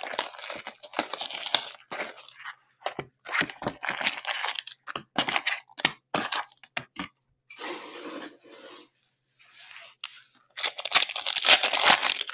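A sealed Skybox Metal Universe hockey card box being opened and its foil packs handled, with a run of short rustling and ripping sounds. Near the end a foil card pack is torn open in the hands, the loudest crinkling tear.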